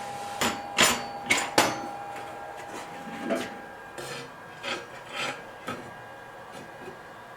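Hand-file strokes on the steel knife blade, about ten short, uneven scrapes, the loudest four in quick succession in the first two seconds. A faint steady hum stops about three seconds in.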